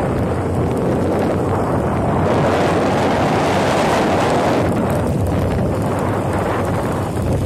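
Wind rushing across the microphone of a moving vehicle, with a steady engine hum underneath. The wind noise grows louder and hissier from a little over two seconds in to about four and a half seconds.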